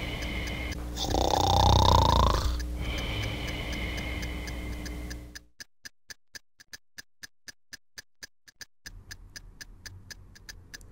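Cartoon snoring sound effect: a long snore about every three seconds, with a high steady whistle-like note between the snores. About halfway through the snoring stops and a clock ticks quietly and quickly, about four ticks a second.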